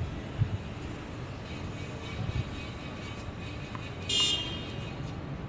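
Steady outdoor background noise, broken about four seconds in by a brief high-pitched beep with several overtones.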